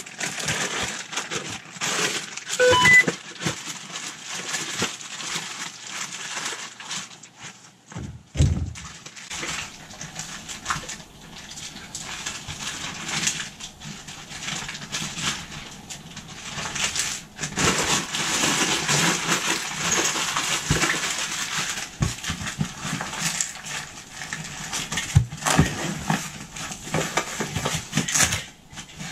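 Continuous rustling of bags and gear while rummaging through a backpack, with many small clicks and knocks and a dull thump about eight seconds in.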